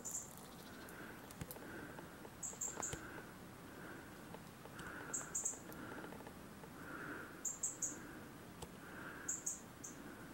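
Small birds calling: high, thin notes in quick clusters of two or three every couple of seconds, over a softer, lower note that repeats steadily a little more than once a second.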